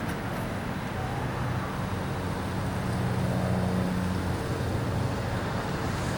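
Union Pacific train passing, a steady low engine drone over rolling noise.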